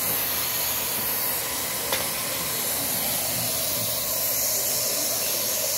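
Steady hiss of a handheld heat gun blowing hot air, with a single light click about two seconds in.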